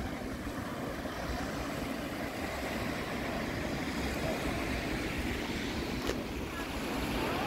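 Wind buffeting the microphone over the steady wash of small waves breaking on a sandy beach, with a light click about six seconds in.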